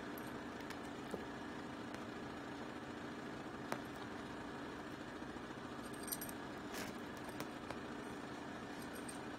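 A steady mechanical hum throughout, with a few soft clicks and a brief light metallic jingle about six seconds in, fitting the cat's collar tag as it rolls on the carpet.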